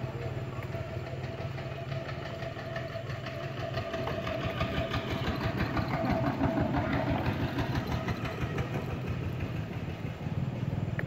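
Engine idling steadily with a low, even hum, a little louder midway.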